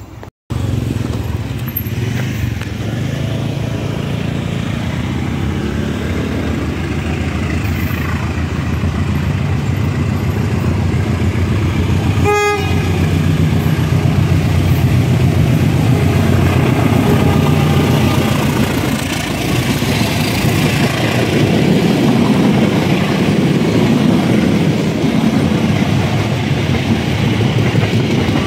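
CC 201 diesel-electric locomotive running under power as it approaches hauling a passenger train, its engine growing steadily louder, with the coaches rolling past near the end.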